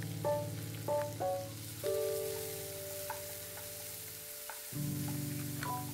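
Chopped onions sizzling in hot oil in a frying pan, along with coconut pieces, dried red chillies and curry leaves, stirred with a wooden spatula. Soft background keyboard music with a held low chord and single notes plays over it.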